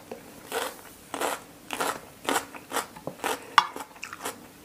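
Close-miked chewing of a mouthful of food, with short wet mouth clicks about twice a second.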